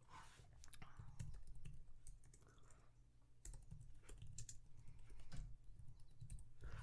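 Typing on a computer keyboard: irregular key clicks, faint, with a few soft low thuds among them.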